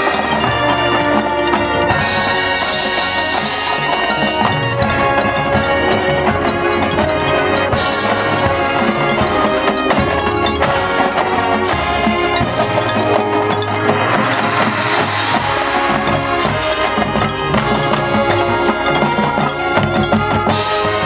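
Marching band playing a piece: brass holding sustained chords over drums and mallet percussion.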